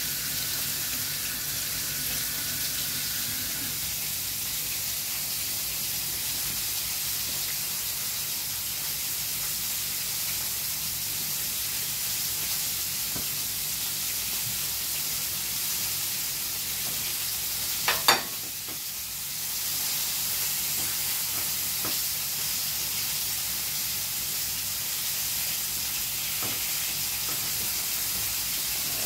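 Food sizzling in a frying pan, a steady hiss, with one sharp knock about eighteen seconds in after which the sizzle dips briefly before picking up again.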